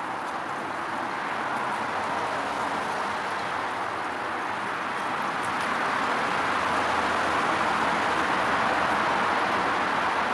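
Shallow brook water running over stones and rubble, a steady rushing that grows gradually louder.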